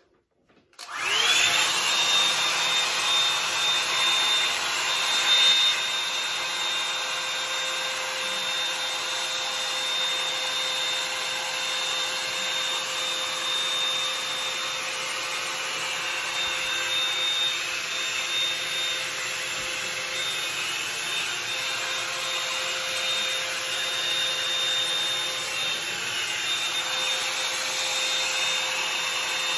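Bed Head Blow Out Freak hot-air volume brush switched on about a second in, its motor whine sweeping up quickly, then running steadily: a loud rush of blown air with a high whine over it as it is worked through the hair.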